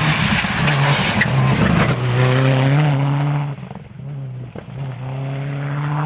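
Rally car at speed on the stage. A loud rush of noise comes first, then the engine note climbs at high revs. It drops sharply a little past halfway as the driver lifts or changes gear, then comes back as a steady, high-revving note.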